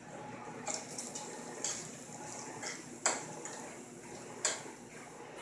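A metal fork clicking and scraping on the plate of a countertop electric grill as bacon is turned: about five sharp clicks, the loudest about three seconds in, over faint steady sizzling of the frying bacon.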